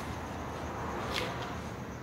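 Steady background noise with one brief scuff about a second in, a sneaker sliding on concrete.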